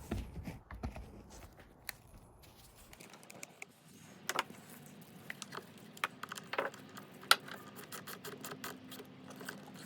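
Light clicks, taps and scrapes of hands handling the battery cables, terminal clamp and wiring loom around a car battery, with a few sharper clicks in the middle.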